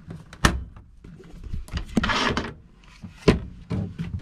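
Cabinet doors and latches being handled: a sharp knock about half a second in and another a little after three seconds, with a scraping rustle around two seconds in and a few lighter clicks.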